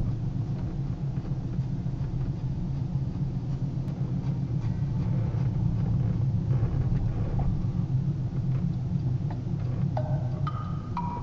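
A GMC pickup truck driving along, its engine and road noise heard from inside the cab as a steady low rumble. About ten seconds in, a few mallet-like music notes step down in pitch over it.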